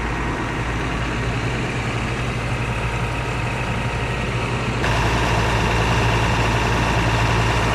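Caterpillar CB-634C tandem drum roller's diesel engine idling steadily. It gets louder and brighter about five seconds in, heard up close at the open engine compartment.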